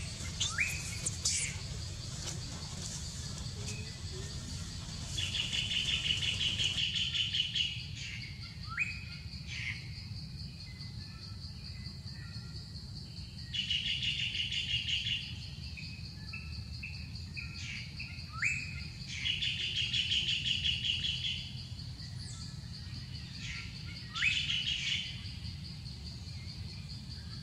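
Birds calling: a fast trill of a second or two repeats every several seconds, with short rising chirps between, over a steady high insect drone.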